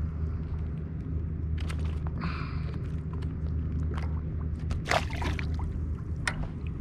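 A steady low rumble, with scattered small knocks and clicks and a couple of brief splashy rustles, from a fish and gear being handled aboard a kayak.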